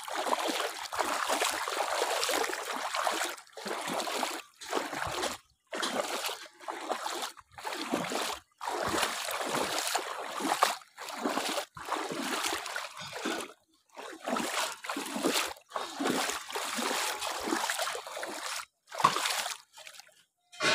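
Wading through shallow muddy floodwater: a splash and slosh of water with each step, about one a second.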